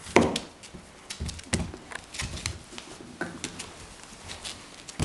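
Five-week-old beagle puppies' paws and claws clicking and pattering on a hardwood floor as they scramble about, in quick irregular taps, with a louder knock just after the start.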